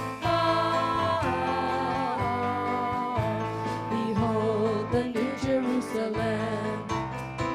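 Live worship music: a band playing a song with a wavering singing voice over bass notes that change about every second.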